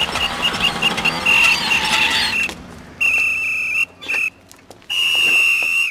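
Traffic policeman's whistle blown to flag down a scooter rider. It gives a quick run of short toots, then four longer blasts with short gaps, all on the same shrill pitch.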